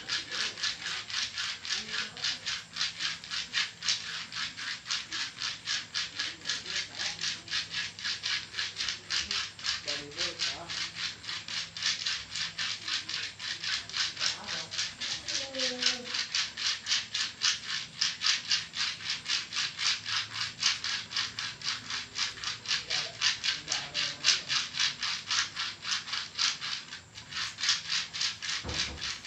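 Rhythmic rasping strokes, about three a second, of jenitri seeds being rubbed back and forth over the skin in a massage, with a brief break near the end.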